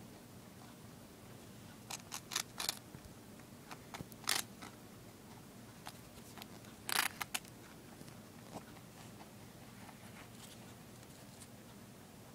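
A rabbit biting and crunching on a piece of toast: short crisp crunches in small clusters about two seconds in and about four seconds in, loudest about seven seconds in.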